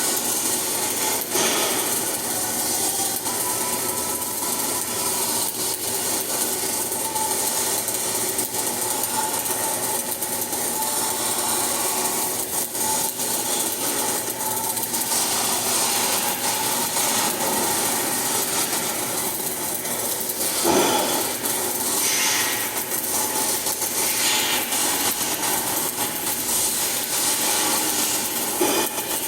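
Flux-cored arc welding: the arc gives a steady, continuous crackle, with one short louder pop about twenty seconds in.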